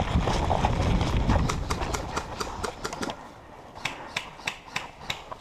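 A player running in snow, feet thudding and crunching at a quick steady pace, heard close on a body-worn camera. After about three seconds it drops quieter into a series of sharp, evenly spaced clicks.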